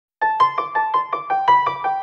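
Background music that starts a moment in: a quick run of bright keyboard notes, about six a second, over a low bass line.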